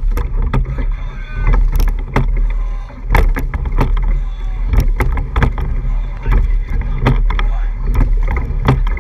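Racing rowing eight under way, heard from low on the hull: a steady rush of water with repeated sharp knocks and splashes from the oars as the crew strokes.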